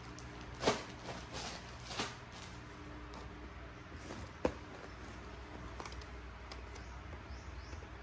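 A few brief rustles and soft knocks from hands handling packaging during an unboxing, with one sharp click about four and a half seconds in, over a low steady hum.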